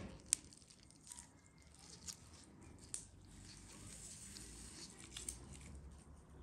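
Needle and thread being pulled through the skin of a pilaf-stuffed whole lamb as it is sewn shut: faint moist squishing with a few sharp clicks.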